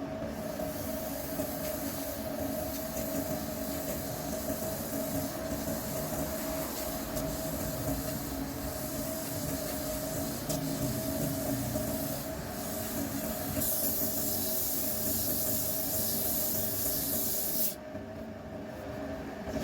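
Wood lathe running steadily with a tool rubbing on the spinning wood, a steady hum under a hiss. About two-thirds of the way through the hiss grows brighter for a few seconds, then the high hiss drops away shortly before the end.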